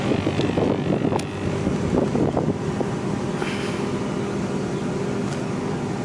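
The engine of a 12-ton road roller runs steadily, with wind noise buffeting the microphone.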